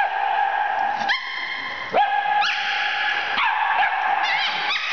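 Puppies yipping and whining in play: a string of high drawn-out yelps, each rising at the start and then held for most of a second, followed by a quick run of short yips near the end.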